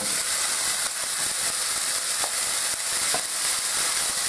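Chopped yellow and green peppers sizzling in a hot frying pan of olive oil, watery peppers that make the pan sizzle more. The sizzle jumps up suddenly at the start and then holds steady, with a few light clicks from stirring.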